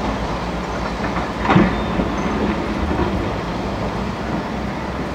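Hydraulic excavator's diesel engine running steadily while it works its bucket among riverbed stones, with one loud metallic clank about one and a half seconds in and a few lighter knocks after it.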